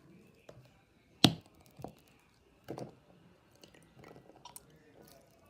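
Sticky slime mixed with lotion and water being squeezed and kneaded by hand: wet squelches and sharp pops, the loudest a little over a second in.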